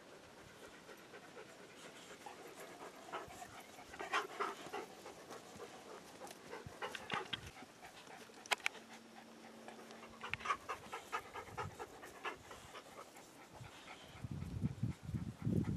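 Dogs panting in quick bursts of short breaths, with a louder low-pitched noise near the end.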